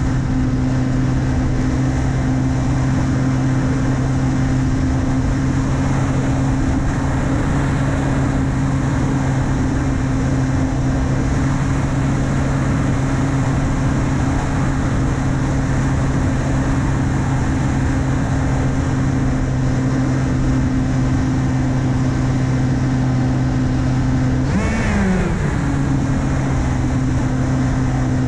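Steady buzz of the S800's 2212 1400KV brushless motor driving an 8x6 APC propeller, heard on board over a rush of air. About 25 seconds in, the pitch drops briefly and then climbs back as the throttle is eased off and reopened.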